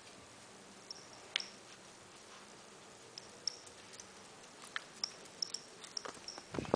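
Beagle puppy's toenails clicking irregularly on a tile floor, faint and scattered, with a louder rustle near the end.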